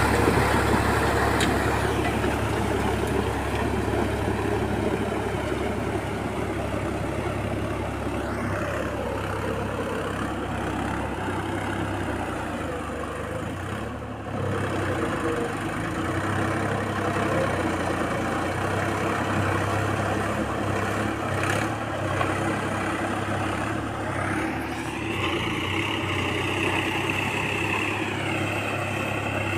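Tractor's diesel engine running under load as it works a flooded paddy field on cage wheels. It is loudest at first and eases off over the first dozen seconds as the tractor pulls away, and its pitch rises and shifts about a third of the way in and again near the end.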